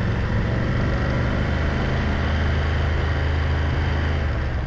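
Motorcycle engine running steadily while riding, with a steady low drone and wind rush on a camera mounted to the motorcycle's windscreen.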